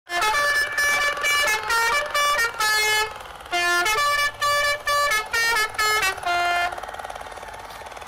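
A musical horn playing a quick tune of short, evenly clipped notes at changing pitches, in two phrases with a brief break about three seconds in; it stops about a second before the end.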